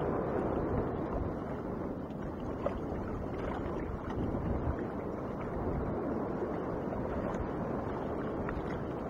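Steady wind noise on the microphone, an even rushing sound with no distinct events.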